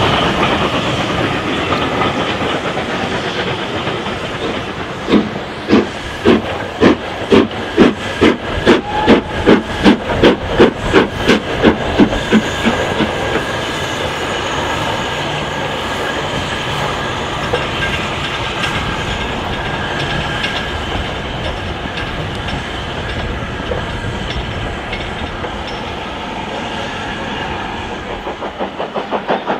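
Steam-hauled train passing: a strong, even beat of about two a second for several seconds, then a steadier running sound with steam hiss. Near the end a new, faster beat starts.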